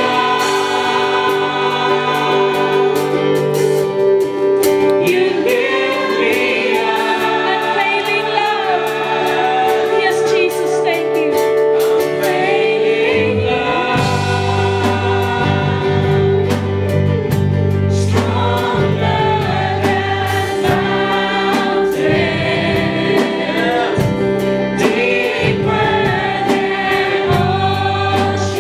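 Contemporary Christian worship song played by a band, with voices singing together over it; a heavier bass and drum part comes in about 14 seconds in.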